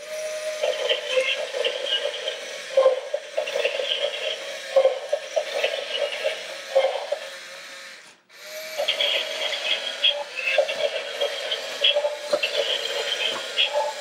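Remote-control AT-AT walker toy walking: its small electric motor and gearbox whirring, with a plastic clack roughly once a second as the legs step. The sound dips briefly about eight seconds in.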